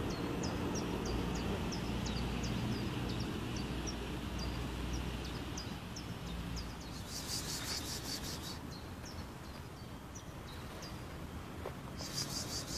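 A small bird chirping over and over, short high chirps about twice a second, over a steady low outdoor rumble. A brief buzzy high rattle cuts in about seven seconds in and again near the end.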